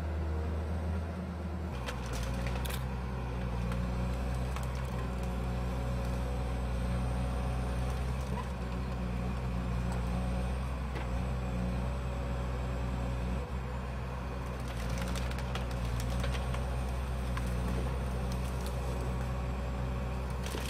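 Tigercat 1055 forwarder's diesel engine running steadily, its low note shifting about two seconds in. Clusters of sharp cracks come over it about two seconds in and again about fifteen seconds in.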